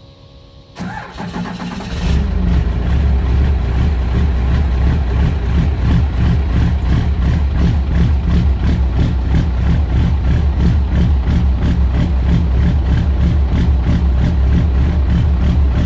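A 1996 Cummins 12-valve 5.9 L inline-six turbo diesel is cranked by its starter for about a second, catches about two seconds in, and settles into a steady, evenly pulsing idle, warming up from a cold start.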